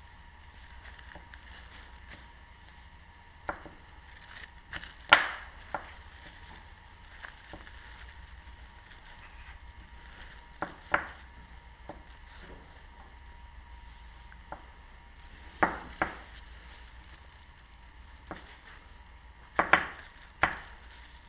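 Hydraulic valve lifters from a VW 1.4 BCA engine being picked up and set down on a paper-covered workbench: sharp metallic knocks every few seconds, often two close together, over a faint steady hum.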